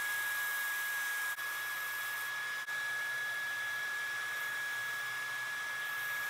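Bench belt sander running steadily, a wooden lure blank held against its moving belt: an even hiss of motor and belt with a constant high whine.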